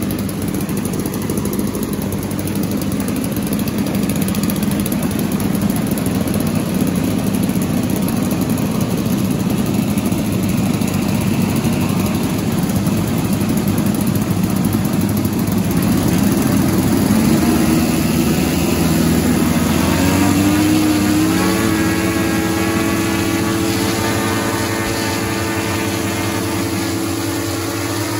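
Several 42cc gasoline engines on a giant RC B-17 model running on the ground with their propellers turning. They run steadily, then the pitch rises as the throttle comes up about two-thirds of the way in and holds at the higher speed.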